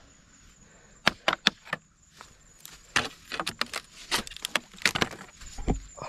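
Short sharp clacks and knocks of hard objects: four in quick succession about a second in, then an uneven run of them from about three seconds in until near the end.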